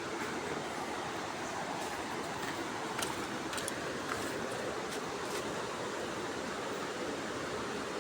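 Steady rushing noise of a waterfall, even and unbroken, with a few faint clicks in the middle.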